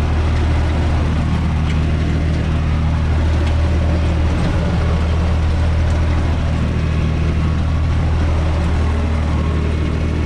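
UTB 445 tractor's diesel engine running steadily at constant speed, heard from inside its cab.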